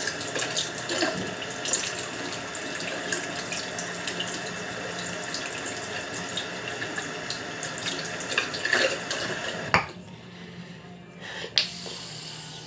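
Tap water running into a sink while small fidget spinner parts are rinsed under it, with scattered light clicks of the parts. The flow cuts off about ten seconds in, leaving a few faint knocks.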